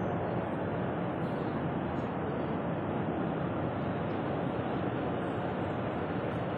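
Belt conveyor running: a steady, even rumble of the moving belt passing over its idler rollers.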